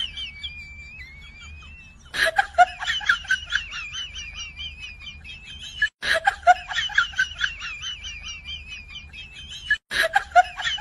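A high-pitched, squeaky, sped-up-sounding laugh: a fast chatter of rising and falling squeaks, several a second. It starts about two seconds in and restarts twice, about every four seconds, like a looped sound effect. Before it comes a thin, wavering whistle-like tone.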